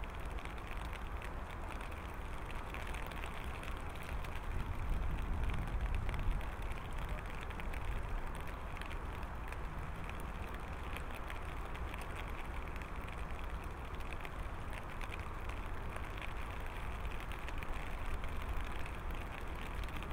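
Steam train approaching in the distance: a faint, steady low rumble with a light hiss.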